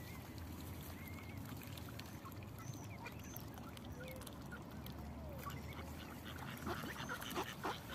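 Mallard ducks quacking: a few scattered soft calls, then a quicker run of louder, harsh quacks near the end as a squabble between a duck and a drake over the feeding spot begins.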